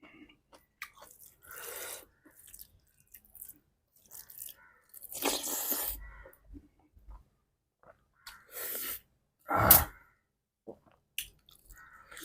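A person eating close to the microphone: chewing and other mouth noises come in irregular bursts with short gaps, the loudest about ten seconds in.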